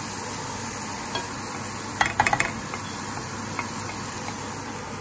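Chickpea and vegetable stir-fry sizzling in a metal frying pan as it is stirred with a spatula. There is a quick run of clicks about two seconds in as the spatula knocks against the pan.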